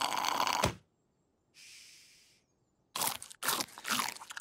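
Cartoon sound effects of chickens eating snacks: a drink slurped through a straw stops sharply less than a second in, then after a near-silent pause comes loud, irregular crunching of popcorn, several bites in quick succession.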